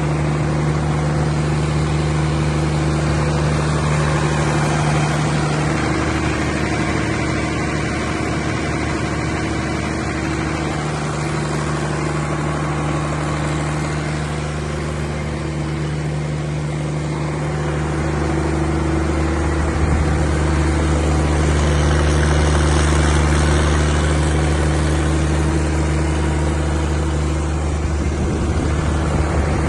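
A 180 kVA Cummins diesel generator set's engine running steadily. Its low note shifts slightly a couple of times and gets a little louder about two-thirds of the way through.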